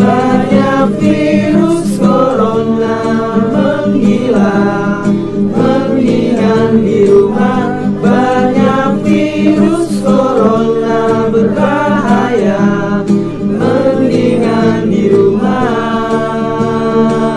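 A virtual choir of many voices singing a song together over steady instrumental accompaniment.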